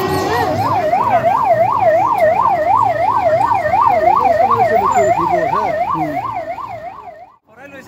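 Electronic siren in a fast yelp, its pitch rising and falling about three times a second. It cuts off shortly before the end.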